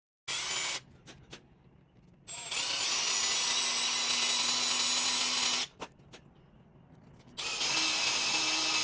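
Power drill running in reverse with a left-handed bit, boring into a broken-off exhaust manifold bolt in the cylinder head. A short burst, then a run of about three seconds, then another run starting near the end.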